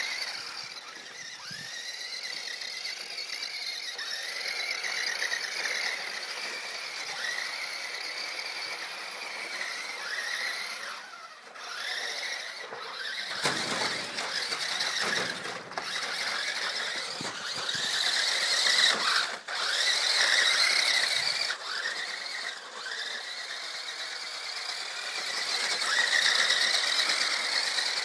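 High-pitched whine of the small electric drive motors of an Overdrive RC stunt car, the pitch rising and falling as the throttle and steering change, with a few brief dropouts.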